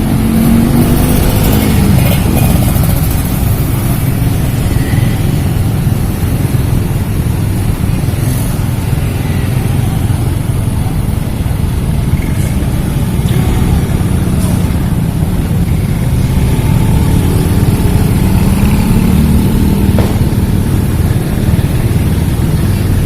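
Busy street traffic: motorcycle and car engines running and passing in a steady loud rumble, with engines rising in pitch as they go by near the start and again late on.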